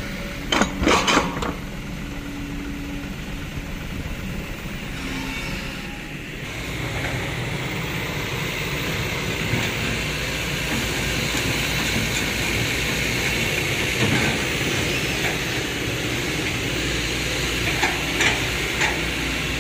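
Diesel construction machinery running steadily: an excavator's engine with a few sharp metal clanks about a second in as its bucket dumps soil, then a loaded dump truck's diesel engine pulling across rough ground, its body knocking and rattling a couple of times near the end.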